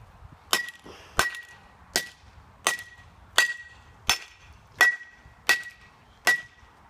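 A broken iPhone 4 being struck nine times in a steady rhythm, about one and a half blows a second, each blow with a short metallic ring.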